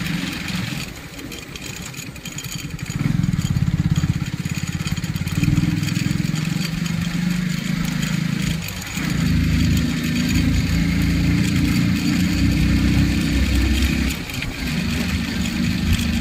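Motorcycle engine running on the move, its note easing off and picking up again twice.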